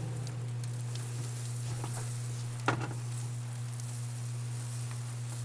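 Steady low electrical hum with a faint even hiss, and one brief short sound about two and a half seconds in.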